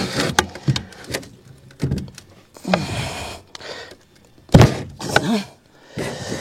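Tyre irons knocking and scraping against a scooter wheel rim as the tyre bead is levered on by hand, with several knocks and one heavy thunk about four and a half seconds in.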